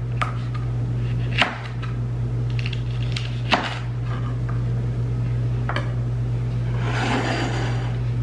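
Kitchen knife slicing a mini sweet pepper on a thin flexible plastic cutting board: a few separate taps of the blade on the board, a second or two apart. Near the end comes a short scrape as the board is picked up off the countertop. A steady low hum runs underneath.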